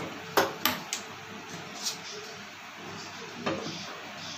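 A nonstick frying pan handled and set down on a gas stove's metal pan supports: a few sharp clinks and knocks, the loudest about half a second in, with fainter ones later, over a steady hiss.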